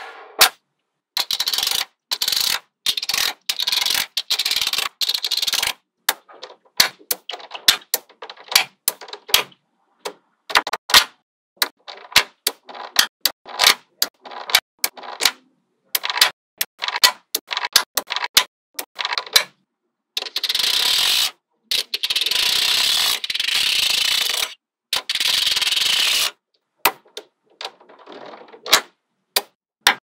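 Small magnetic balls clicking and snapping together in quick, irregular runs of sharp clicks. Two longer stretches of steady scraping noise start and stop abruptly.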